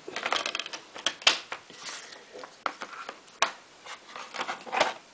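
A Blu-ray steelbook and its packaging being handled and put away: rustling with a run of sharp clicks and taps. The sharpest clicks come about a second in, around the middle, and near the end.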